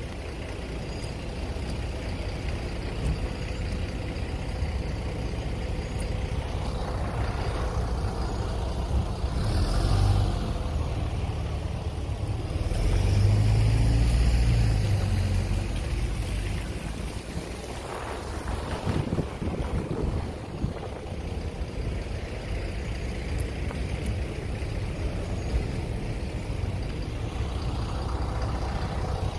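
Steady low rumble of road traffic on rain-wet streets, swelling louder for a few seconds around the middle and again briefly later.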